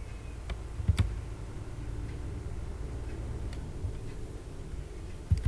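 A few sharp, scattered clicks, typical of someone working a computer's mouse and keys, over a low steady hum.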